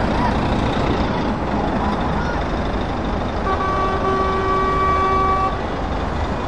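Heavy lorry diesel engines running as trucks move off in a line, with a truck horn sounding once for about two seconds around the middle.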